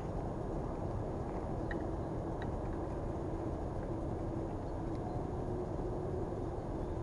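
Steady low rumbling noise with a faint hum and a couple of faint ticks, outdoors.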